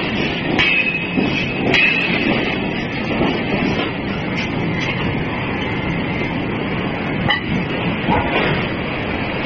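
Steady, dense noise of heavy forging machinery running in a forge shop, with a few light metal clanks.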